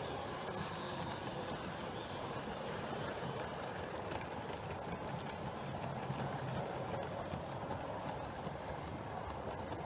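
7mm-scale model train, a long rake of vans behind a steam locomotive, rolling past on the track with a steady rumble and a rhythmic clicking clatter of wheels on rail.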